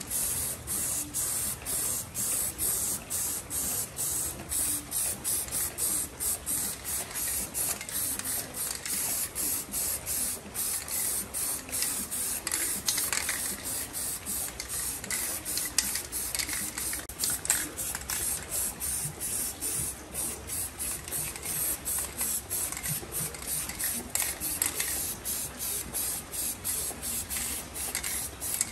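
Aerosol spray paint can hissing as paint is sprayed in quick short bursts, the hiss breaking off and restarting about twice a second.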